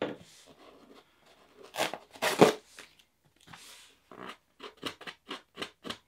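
Tape being pulled off the lid of a foam shipping box: a couple of loud rasping tears about two seconds in, then a quick run of short rips, about three a second, near the end.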